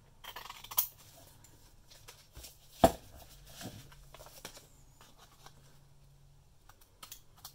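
Scissors snipping through a paper envelope in short cuts, with paper rustling as it is handled and one sharp click about three seconds in.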